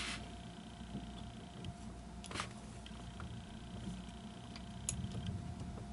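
Faint handling noise at a workbench: a few small, separate clicks over a steady low hum.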